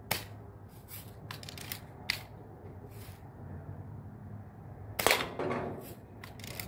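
Daisy Red Ryder spring-powered lever-action BB gun being fired: sharp pops with smaller clicks of the lever being cocked between them. About five seconds in comes the loudest event, a knock and clatter as a BB knocks a soda can off the top of the target box.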